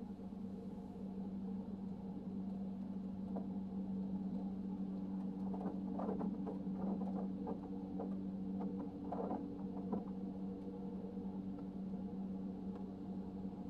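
Touchless automatic car wash running, heard from inside the car: a steady machine hum with a few even tones, and a busier stretch of spray hitting the windshield between about six and ten seconds in.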